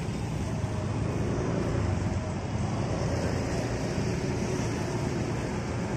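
Large intercity bus's diesel engine running with a steady low rumble as the bus pulls out slowly at walking pace.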